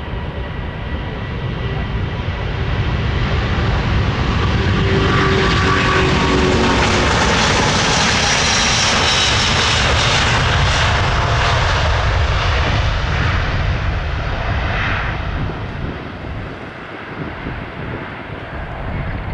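Airbus A330-900neo's twin Rolls-Royce Trent 7000 turbofans at takeoff thrust during the takeoff roll and lift-off: steady jet noise with faint whining fan tones, growing louder for the first few seconds as the airliner approaches, loudest in the middle, then fading as it climbs away.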